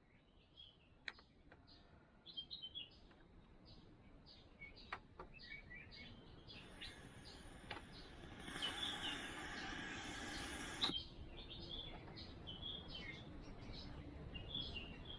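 Faint hiss of untuned FM static from a Panasonic RX-ES29 boombox, rising from about halfway and cutting off abruptly with a click about eleven seconds in; there is no station to receive here. Small birds chirp throughout, with a few sharp clicks.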